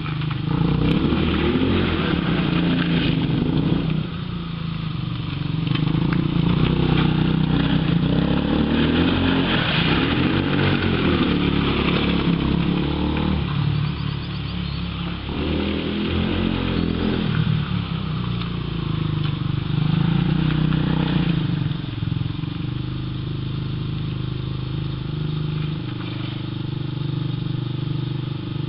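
Small ATV engine running as the quad drives around, revving up and easing off again and again, settling to a lower, steadier note near the end.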